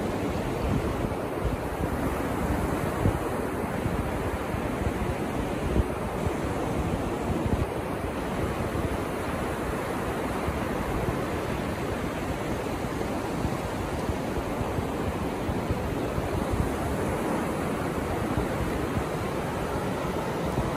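Ocean surf breaking and washing in over a shallow sandy beach, a steady rushing wash, with wind buffeting the microphone in a low rumble.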